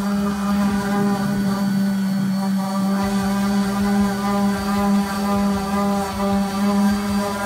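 Electric orbital sander running steadily against the boat's hull, sanding off the old name and its adhesive. It makes a loud, even motor hum that holds one pitch.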